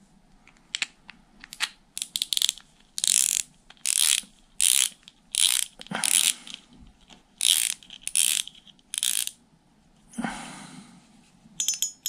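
Drag clicker of a Daiwa Laguna LT 1000 spinning reel ratcheting in about a dozen short runs of clicks as the spool is twisted by hand against the drag. The refitted clicker is working again. Near the end there is a brief soft rubbing swish.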